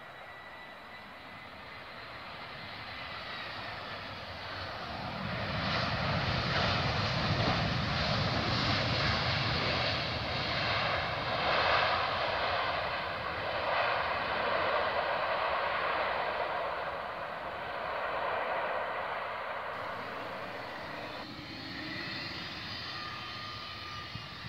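Jet engines of an arriving Airbus A320-214: a roar that swells about four seconds in, holds loud for roughly ten seconds, then slowly fades, with a high turbine whine heard again near the end.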